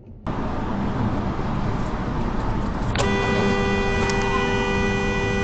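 Steady road noise of a car at freeway speed, heard from inside the car. About three seconds in, a car horn starts sharply and is held down without a break.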